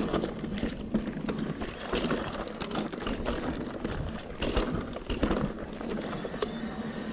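Wind rumbling on the microphone, with scattered knocks and rattles throughout.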